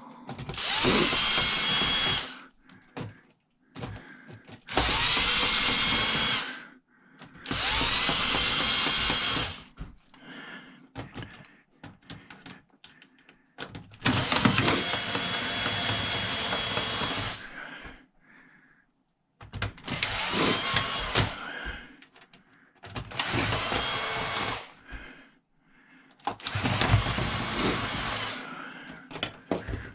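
Power drill running in about seven short runs of one to three seconds each, a whine that rises as the motor spins up and then cuts off, as screws are backed out while dismantling a cash register.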